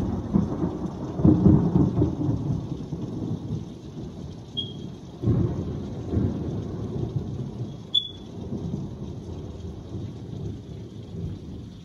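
Thunder rumbling in a heavy rainstorm, heard from indoors through a window. The rumble is loudest in the first two seconds, swells again about five seconds in, then eases off over the steady hiss of rain.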